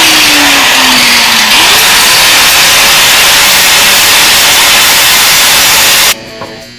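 Electric arc welder welding a steel chassis sleeve into the frame: a loud, steady hiss that stops abruptly near the end, leaving a low hum.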